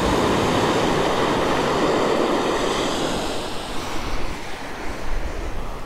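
Surf washing up on a sandy beach, loudest in the first few seconds and then easing, with some wind noise on the microphone.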